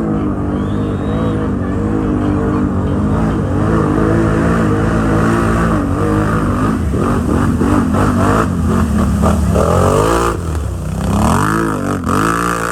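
ATV engine running hard under load, its pitch steady at first, then wavering, then rising and falling sharply several times near the end as the throttle is blipped.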